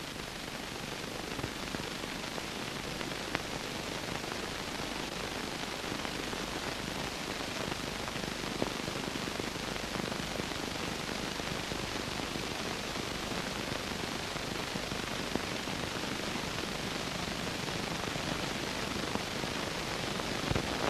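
Steady hiss of an old film soundtrack, with a few faint clicks.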